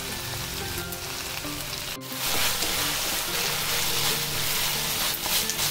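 Chopped onion, tomato and capsicum sizzling in oil in a frying pan, coated with soy sauce and stirred with a wooden spatula. The sizzle cuts out for an instant about two seconds in, then comes back louder.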